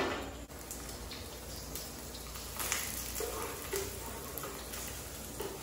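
Salami slices frying in a little oil in a pan, a steady sizzle with scattered crackles.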